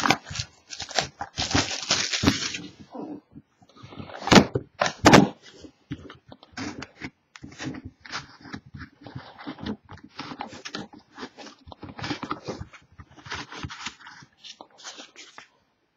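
A pack of trading cards being opened and its cards handled: irregular crinkling of the wrapper and cards clicking and rubbing, with two sharper snaps about four and five seconds in.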